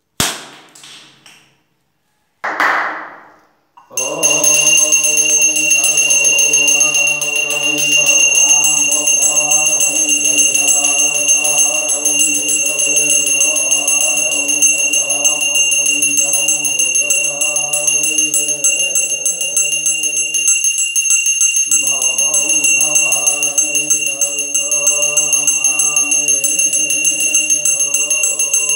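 Brass puja hand bell rung without pause, from about four seconds in, while a man chants mantras in a steady sing-song voice that pauses once for breath.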